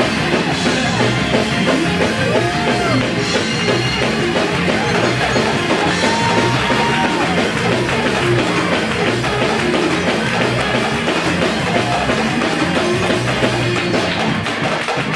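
Live church band playing loud, up-tempo gospel-rock music, with a drum kit keeping a steady beat and electric guitar.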